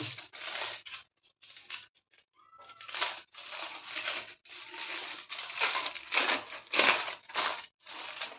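Aluminium foil crinkling and rustling as it is peeled open and unrolled from a chilled sweet log. The sound comes in short irregular rustles at first, then crinkles almost continuously from about three seconds in.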